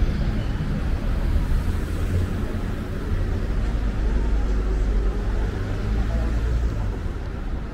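City street traffic: a low vehicle engine rumble with road noise, easing off near the end.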